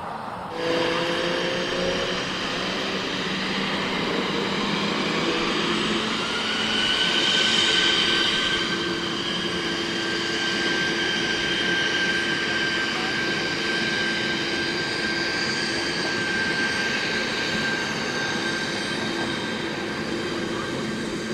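Gulfstream G550 business jet's twin Rolls-Royce BR710 turbofans running at taxi power. A high whine glides up in pitch about six seconds in and then holds steady over lower engine hum and rushing noise.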